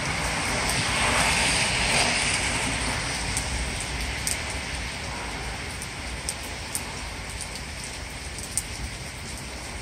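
Heavy thunderstorm rain falling steadily on lawn and street, with scattered sharp ticks of drops landing close by. The rain hiss is louder for the first three seconds, then eases a little.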